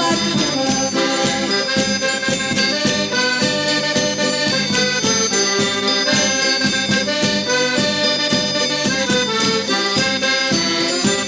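Madeiran folk dance tune (a baile) played by a folk group on traditional instruments, with a steady beat of percussion.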